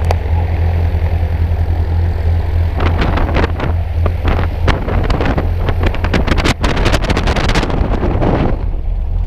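A light single-engine plane's piston engine and propeller running on the ground, a steady low drone, with propeller wash buffeting the microphone. From about three seconds in until near the end, a run of knocks and rustles close to the microphone.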